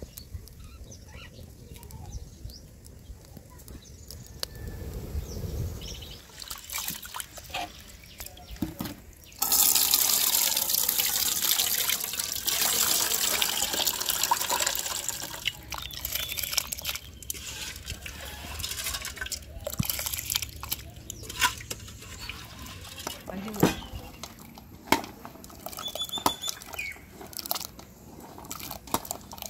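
Water being poured, starting suddenly about a third of the way in and splashing loudly for several seconds before trailing off. Scattered clicks and knocks come after it.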